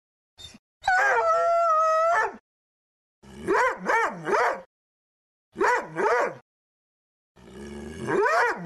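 Doberman howling: one long held howl of about a second and a half, then short yowls that rise and fall in pitch, three together, two more, and another group near the end.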